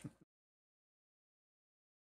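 Silence: the sound track cuts off completely a moment after the start.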